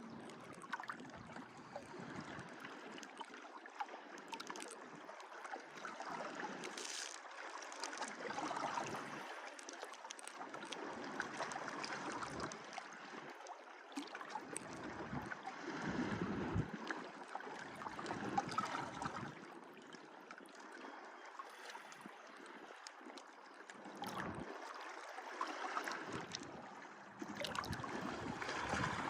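Sea waves washing onto a beach, swelling and easing every few seconds.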